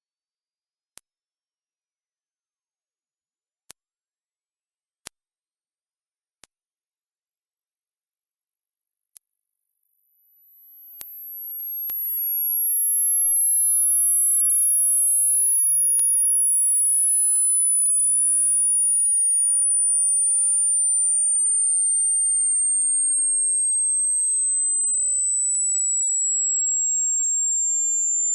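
Hearing-test sine tone, a single pure, very high-pitched whistle that starts near the upper limit of hearing and steps slowly downward in small steady steps. It is meant for listeners to note the pitch at which they first hear it.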